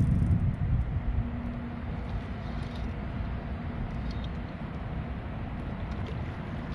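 Wind rumbling on the microphone, loudest in the first second, with a faint steady hum underneath.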